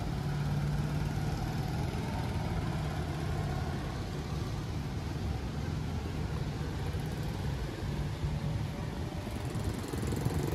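Street traffic: the steady low hum of engines from passing vehicles over a general city background noise.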